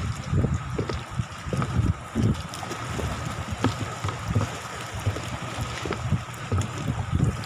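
Gusty wind buffeting the microphone in uneven low rumbles, with a faint steady high hum underneath.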